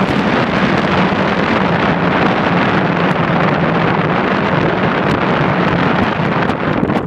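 Wind rushing over the microphone at speed, over a steady rumble of longboard wheels rolling fast on asphalt.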